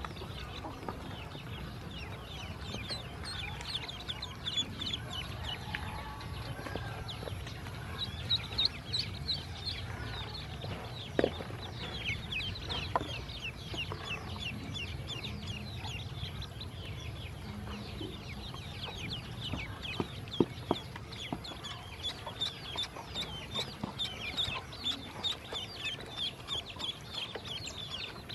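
Ducklings peeping continuously: many short, high, falling peeps, with a few sharp clicks in between.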